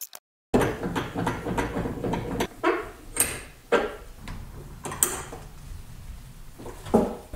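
A run of irregular clunks and knocks, dense for the first couple of seconds and then spaced out, as a wooden hatchet handle is clamped upright in a cast-iron bench vise.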